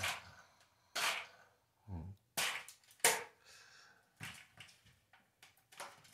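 Plastic toy engine being crushed under a sandal on a tile floor: a handful of sharp cracks and snaps, roughly a second apart, with a brief low creak about two seconds in as the plastic gives under the weight.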